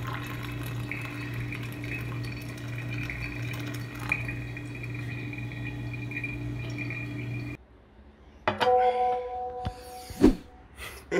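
Hot water pouring from a stainless-steel kettle onto coffee grounds in a pour-over filter, over a steady low hum. It cuts off about seven and a half seconds in. A second later a mug is set down on a glass tabletop with a ringing clink, followed by a softer knock.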